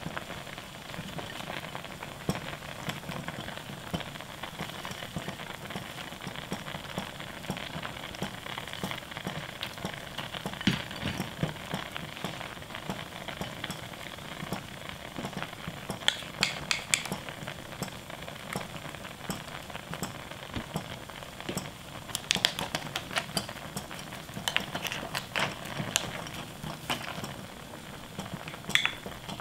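Pot of clear Manila-clam soup at a rolling boil in a glass pot, bubbling and crackling steadily, with a few clusters of sharp clicks in the middle and later on.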